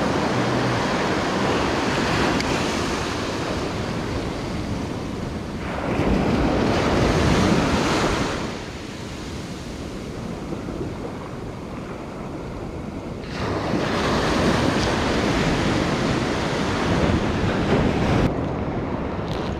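Sea surf breaking and washing up a sandy beach, with wind buffeting the microphone. The wash swells louder about six seconds in and again from about thirteen seconds.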